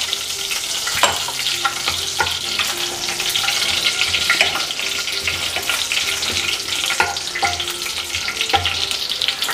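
Whole spices (bay leaves, dried red chillies, cloves, cardamom, cinnamon, cumin seeds) sizzling and crackling in hot oil and ghee in a kadhai: the tadka tempering, with a few louder clicks among the steady sizzle.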